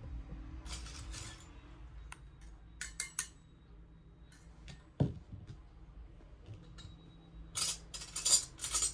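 Small steel pieces of a miniature kitchen set clinking and rattling as they are handled. There are a few sharp clicks around three seconds in, a dull thump at about five seconds, and a run of bright metallic clattering near the end.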